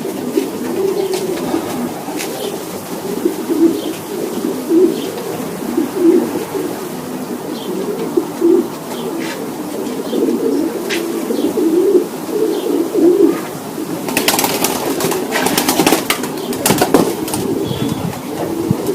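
Racing pigeons cooing steadily in the loft, with a loud flurry of wingbeats a little after halfway through.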